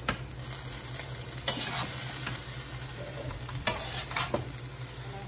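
A metal spatula stirring and turning fried rice in a wok over a gas flame, the rice frying steadily, with a few louder scrapes of the spatula against the pan.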